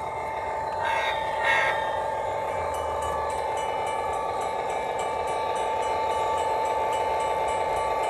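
O-scale model diesel locomotive running with a steady electric hum and giving two short horn toots about a second in. From about three seconds in, the grade-crossing bell rings with even, rapid strikes: a recorded crossing-bell sound played by a DFPlayer MP3 module through a small 8-ohm speaker while the crossing lights flash.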